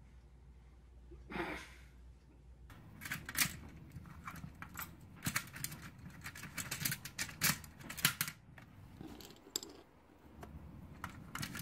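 Hard plastic Connect Four discs clicking and rattling against the plastic grid as a coati handles them and drops them in. From about three seconds in there are many quick, sharp clicks in irregular clusters.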